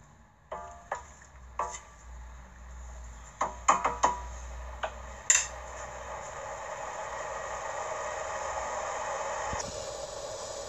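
A wooden spoon knocks and clinks against a cooking pot several times as a vinegar pickling brine is stirred. Then the brine heating toward a boil gives a steady hiss that slowly grows louder and cuts off suddenly near the end.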